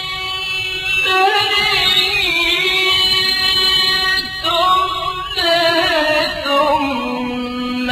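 Quran recitation in the melodic tajweed style: one voice drawing out long, ornamented held notes, with a brief break about four seconds in.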